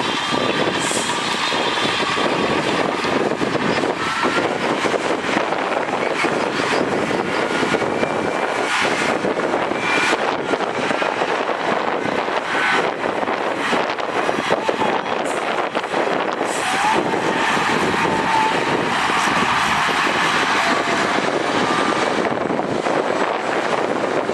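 Heavy earthmoving machinery working: a steady diesel engine and mechanical din, with short high squeals now and then.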